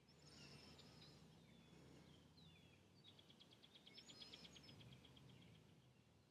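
Faint outdoor ambience with small birds calling: a few high chirps and short whistled glides, then from about three seconds in a rapid trill of roughly ten notes a second lasting a couple of seconds.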